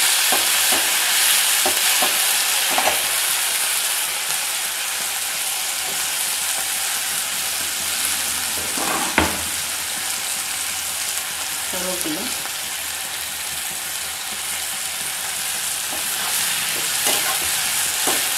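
Chopped onions, green chillies and ginger frying in hot oil in a metal kadai: a steady sizzle, easing a little as it goes, while a flat steel spatula stirs them, scraping and clicking against the pan, with one sharper knock about nine seconds in.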